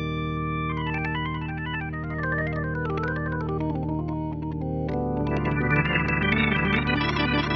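Dexibell Combo J7 organ playing its tonewheel-style 'Mistic Rotary' sound: a held chord with quick runs of notes rippling up and down over it, then a fuller, louder chord about five seconds in with more runs.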